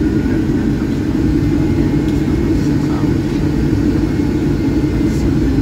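Cabin noise of a Boeing 757-200 taxiing: a steady low rumble from the engines at taxi power and the rolling aircraft, heard from inside the cabin.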